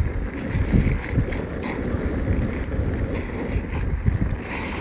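Wind buffeting the microphone in a steady low rumble, with wet slurping and smacking as noodles and octopus are sucked in and chewed several times.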